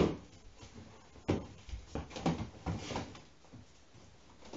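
A series of irregular knocks and thumps on wood. The loudest comes at the start, then one at about a second and a quarter, and a quick cluster around two to three seconds in.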